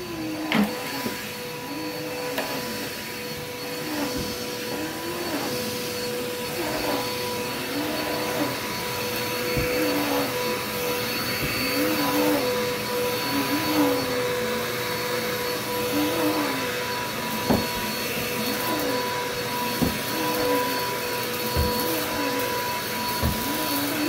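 Red upright vacuum cleaner running on carpet, a steady motor whine over rushing air, pushed back and forth so its lower tone rises and falls in a regular pattern about every second and a half. A few sharp knocks sound now and then.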